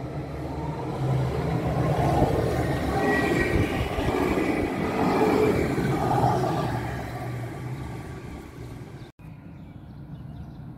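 A tram passing by: wheels running on the rails with motor noise, swelling about two seconds in and fading away. The sound cuts off suddenly about nine seconds in, leaving a quieter background.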